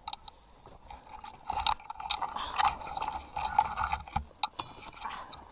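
Footsteps crunching and scuffing over loose rocks and dry brush on a steep slope, with twigs and leaves scraping past, in a run of irregular crackles and clicks.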